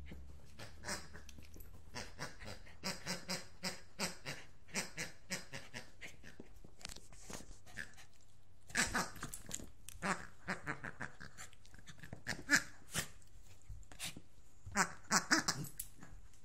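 Maltese-poodle mix dog nosing and mouthing a pink rubber pig toy: a string of short, irregular sounds, some with a squeaky pitch, louder in clusters around the middle and near the end.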